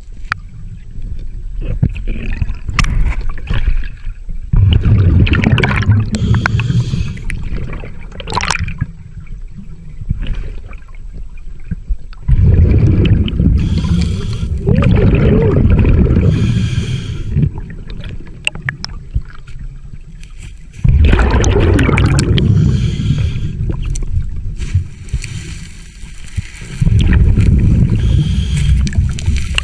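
Scuba diver breathing through a regulator underwater: each exhalation comes out as a rumbling, gurgling rush of bubbles, about four in all, several seconds apart, with quieter crackling stretches in between.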